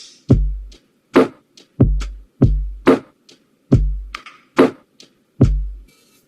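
Electronic drum-machine beat in a lo-fi style: deep kick-drum hits alternating with sharper snare hits, about one to two hits a second, with short gaps of silence between them.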